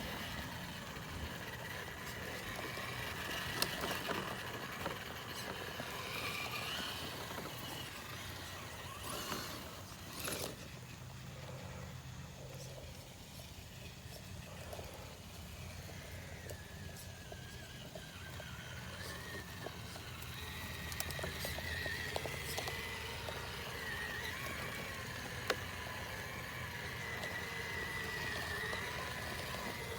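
Electric RC crawler's motor and gear drivetrain whining, rising and falling in pitch as it is driven on and off the throttle, with a few sharp knocks and clicks along the way.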